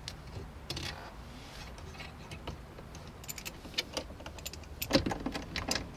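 10 mm socket wrench with an extension clicking and clinking as it works the bolts holding the dash centre panel: a run of quick ratchet-like ticks past the middle, and the loudest clicks about five seconds in.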